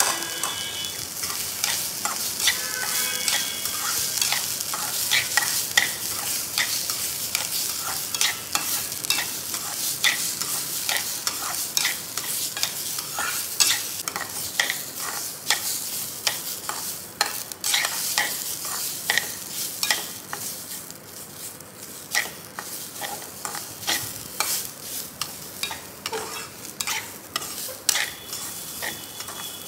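Rice being dry-roasted in a little oil in a stainless steel kadhai: a slotted steel spoon stirring and scraping the grains against the pot with frequent light clinks, over a faint sizzle.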